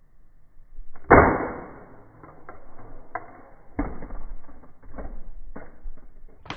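LG flip phone dropped from a height, hitting the ground with one loud hard impact about a second in, followed by several lighter knocks and clatters over the next few seconds.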